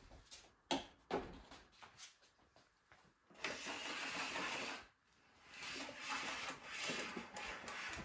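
Power cord being pulled out of the cord reel of a Bosch BGS21X320 bagless canister vacuum cleaner: a couple of sharp clicks, then a rushing rattle in two pulls, the first about three and a half seconds in, the second, more uneven, from about five and a half seconds.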